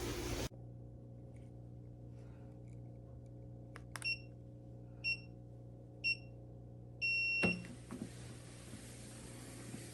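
Electronic beeps from a walking pad treadmill's control panel: three short beeps a second apart, then one longer beep, the pattern of a start countdown. A soft steady hiss comes in as the long beep ends.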